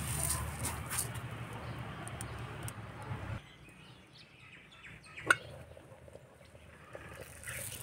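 Birds chirping in the background, with one sharp chirp standing out about five seconds in. A low hum under the first few seconds stops abruptly about three and a half seconds in.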